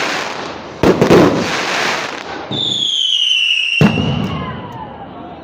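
Fireworks going off: a loud bang about a second in that rumbles and crackles away, then a whistling firework whose pitch falls for over a second before ending in a sharp crack, with fainter falling whistles after it.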